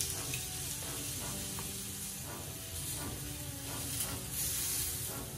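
Oiled watermelon wedges sizzling on a hot cast iron grill plate, a steady hiss.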